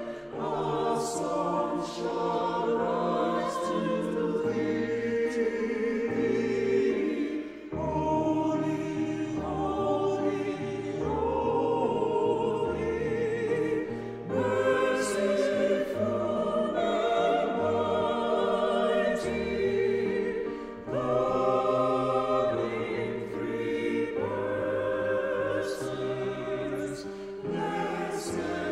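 Mixed SATB choir singing a worship song in four-part harmony with piano accompaniment; the low notes move beneath the voices.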